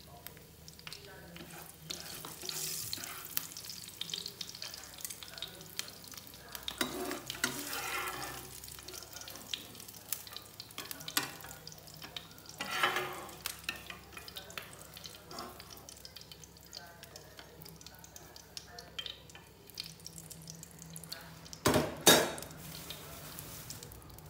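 Potato strips sizzling in hot oil in a nonstick frying pan, with a metal slotted spatula stirring and scooping them out. Two sharp knocks close together near the end are the loudest sounds.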